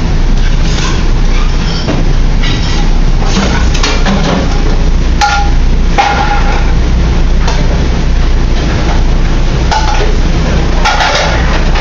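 Restaurant kitchen at work: a steady low rumble with metal sauté pans and pans clanking and clattering against the range and each other every second or two, a couple of the hits ringing briefly.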